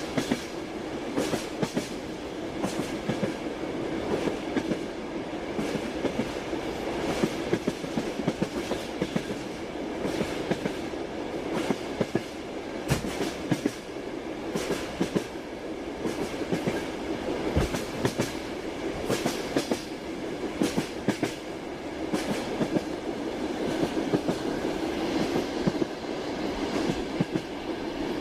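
Train wheels running over rails: a steady rolling rumble with repeated clickety-clack clicks as the wheels cross rail joints.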